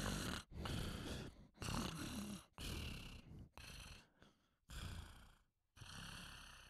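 Raspy, breathy vocal sounds in a series of about six bursts, each half a second to a second long, with short pauses between them.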